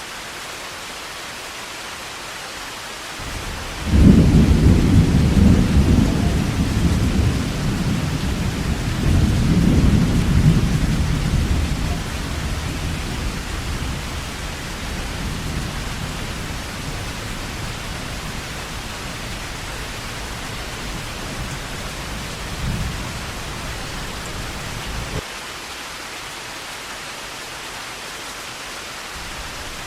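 Heavy rain falling with a steady hiss. A deep rumble of thunder breaks in about four seconds in, swells again a few seconds later, fades slowly, then cuts off suddenly.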